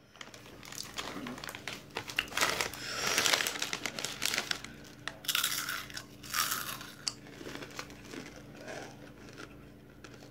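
Crinkly plastic packaging being handled in several bursts of crinkling, the longest about three seconds in.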